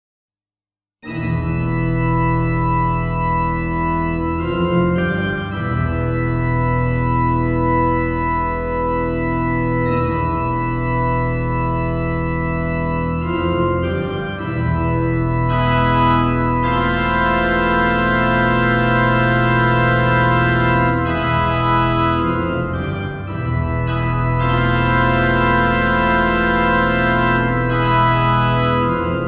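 Organ improvisation: held chords over sustained low bass notes, the harmony shifting every few seconds, starting about a second in.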